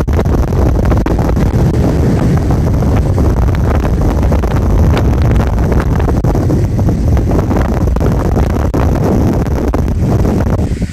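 Strong storm wind buffeting the microphone: a loud, continuous low rumble with crackling, the kind of wind distortion that spoils the recording.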